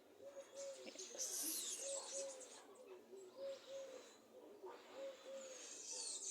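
Faint low cooing calls, a two-note phrase repeated about every second and a half, with higher bird chirps and twitters over them.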